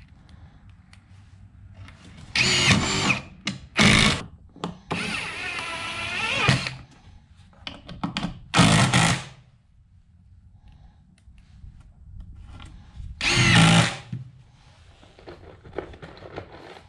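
Ryobi cordless driver driving screws into 2x4 framing in about five short bursts. The longest burst, around the middle, has a steady motor whine.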